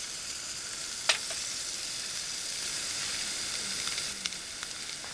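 Olive oil with rehydrated mushrooms and sun-dried tomatoes sizzling steadily in a pot on a backpacking stove. A sharp knock comes about a second in, and a few light ticks come near the end.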